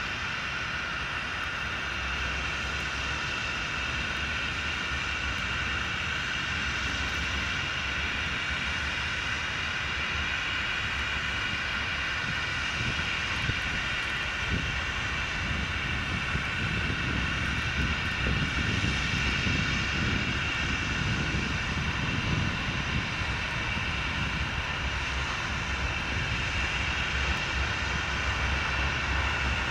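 Norfolk Southern GE diesel locomotives approaching slowly: a steady engine drone with a high whine over it and a low rumble that grows louder in the second half as the locomotives near.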